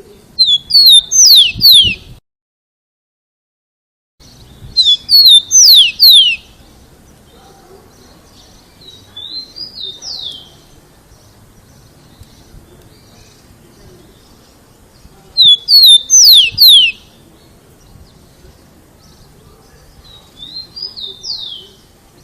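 Rufous-collared sparrow (tico-tico) singing loudly: three song phrases of quick, clear whistles that each slide downward, several seconds apart. Two quieter, shorter phrases come in between, and the sound drops out completely for about two seconds after the first song.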